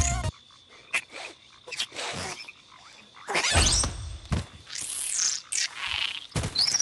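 A small animal's high chirps and squeaks that glide up and down in pitch, coming in separate bouts with short noisy bursts between them.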